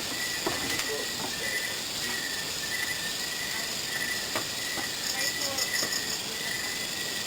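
Crickets chirping at night: a high, pulsing trill keeps going, and about five seconds in a second, higher and faster chirping joins it.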